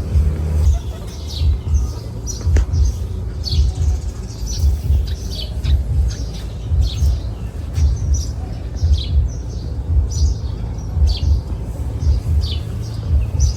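A bird chirping over and over, short high chirps about one or two a second, over a loud, uneven low rumble.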